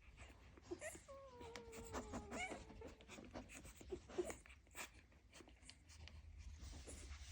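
Young Dalmatian puppies whimpering and squeaking softly, with one long, slightly falling whine about a second in.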